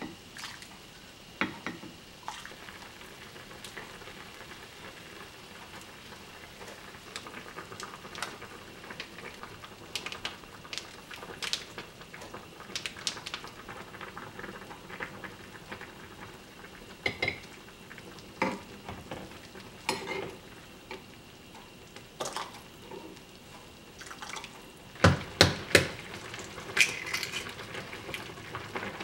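Soft tofu stew simmering in a pot over a gas flame, with scattered clinks and scrapes of a metal ladle and spoon against the pot as broth is ladled out and tofu spooned in. A cluster of louder knocks comes near the end.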